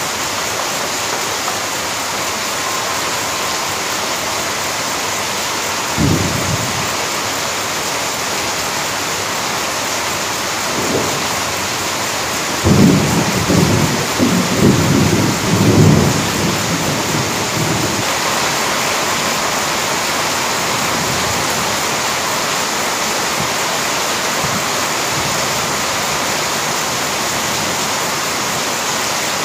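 Heavy rain pouring steadily, with a brief low rumble of thunder about six seconds in and a longer rolling rumble from about thirteen to eighteen seconds in.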